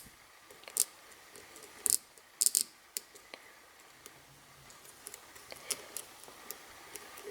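Lock pick and tension tool working the pin tumblers of a Brinks stainless steel padlock during single-pin picking: scattered small, sharp metallic clicks and ticks, a few louder ones in the first three seconds.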